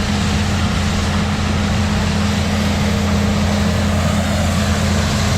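Case IH 215 Magnum tractor's six-cylinder diesel running steadily while driving a BOB 46 pull-type bean combine: a constant engine hum with a steady wash of harvesting machinery noise over it.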